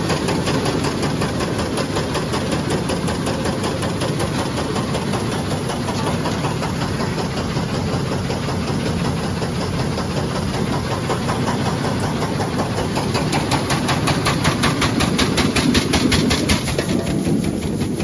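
Grain bin auger running loudly, with grain pouring through the floor well into the turning flighting: a dense, steady mechanical rattle and rush. A fast, even pulse comes through more clearly in the later seconds.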